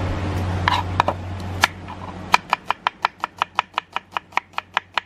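Kitchen knife slicing an onion against a wooden chopping board: a quick, even run of cuts, about five a second, starting about two seconds in. Before it, a steady low hum with a few knocks.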